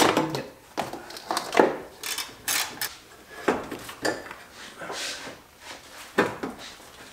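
Ratchet wrench and metal car parts clinking and knocking in irregular short strikes as the radiator's mounts are undone so the radiator can be shifted.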